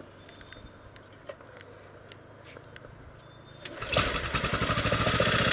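1998 Yamaha Grizzly 600 ATV's single-cylinder engine catching about four seconds in and running on with a steady, rapid beat, its first start after a wet clutch rebuild with a new one-way bearing. Before it, a few faint clicks.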